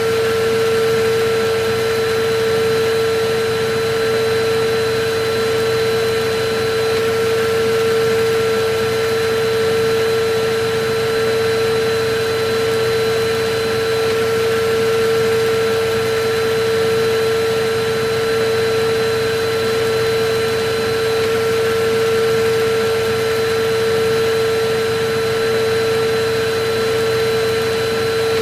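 Electric vacuum cleaner running steadily: a constant motor whine with a strong hum and a rush of air, played as continuous white noise.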